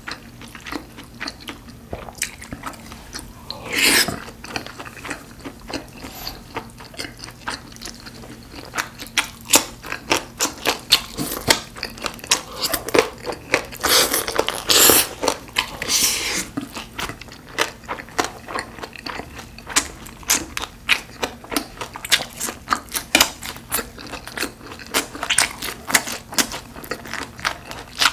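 Close-miked chewing of a mouthful of Korean food eaten with chopsticks: a dense run of quick wet mouth clicks and smacks, with louder stretches about four seconds in and again around fourteen to sixteen seconds in.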